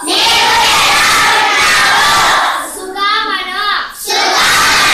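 A class of children shouting a phrase together in unison, twice, with a single voice calling out a line between the two group responses: call-and-response recitation.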